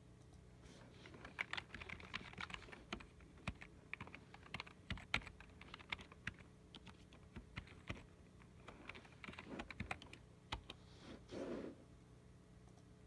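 Keys being typed on a computer keyboard: quick, irregular clicks in short runs that thin out after about ten seconds, over a faint steady hum.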